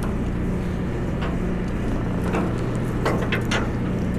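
Steady low hum of the party boat's machinery, with a few short clicks and knocks about a second in, near the middle and in a cluster near the end.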